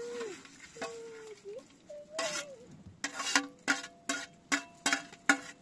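A metal ladle knocking repeatedly against a metal serving tray and steel cooking pot, each knock ringing briefly, about two or three a second from about three seconds in. A scrape comes shortly before, and a brief high-pitched voice is heard in the first second or so.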